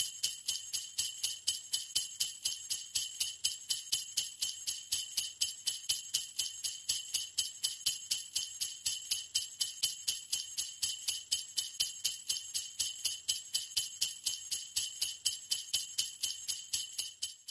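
Jingle bells shaken in a steady, even rhythm, about four shakes a second, starting and stopping abruptly.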